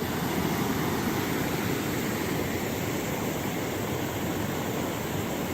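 Waterfall with steady, even rushing of falling water.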